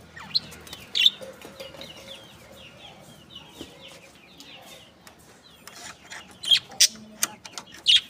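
A flock of budgerigars chattering in an aviary: a steady run of quick warbling chirps, with a few loud, sharp calls about a second in and again near the end.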